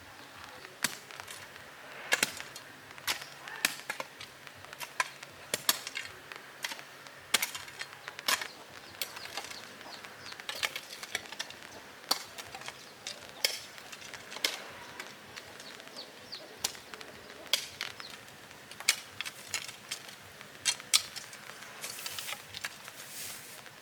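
Sharp irregular knocks of a hand tool striking wood, about one or two a second, some louder than others.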